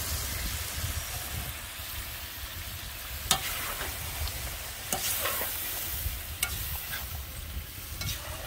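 Diced onions and lamb sizzling in sunflower oil in a cast-iron kazan, stirred with a metal skimmer ladle. A steady frying hiss, with three sharp clicks as the skimmer knocks against the pot.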